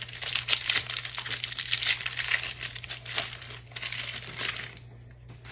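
Crinkling and tearing of packaging as a 2021 Mosaic NFL trading-card hanger is opened by hand. A dense crackle runs for about three seconds, then comes a second shorter burst about four seconds in.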